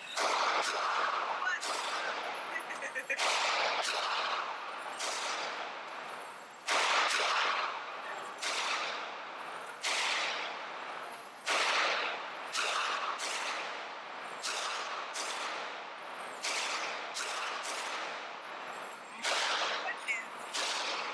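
Handgun shots fired one after another at a shooting range, roughly one a second at an uneven pace, some louder than others, each followed by a short ringing echo.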